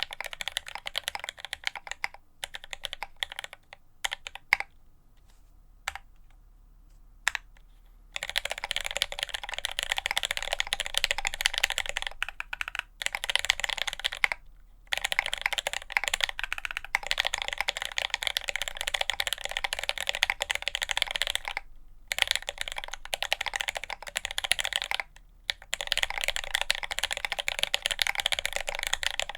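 Typing on a Quasi Alice mechanical keyboard with Marshmallow switches and GMK ABS keycaps, set on a deskmat. A few scattered keystrokes and a pause of about three seconds, then fast continuous typing from about eight seconds in, broken by a few short pauses.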